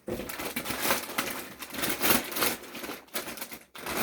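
Gift-wrapping paper being torn and rustled in uneven bursts as a present is unwrapped, with a couple of short pauses near the end.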